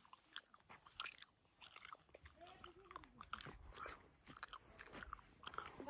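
Near silence: faint scattered clicks and crackles, with a faint distant voice about halfway through.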